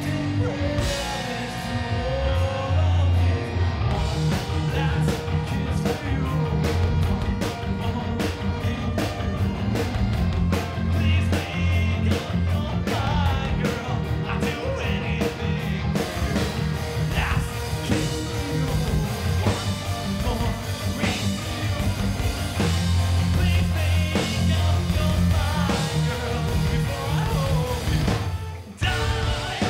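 Live rock band playing: distorted electric guitars, bass, drum kit and violin, with a man singing. A fast cymbal beat runs through the first half, and the band cuts out briefly near the end before coming back in.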